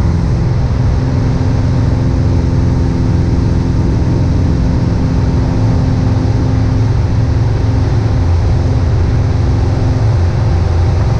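Steady drone of a Piper PA-28-161 Warrior II's four-cylinder Lycoming O-320 engine and propeller in cruise, heard from inside the cabin.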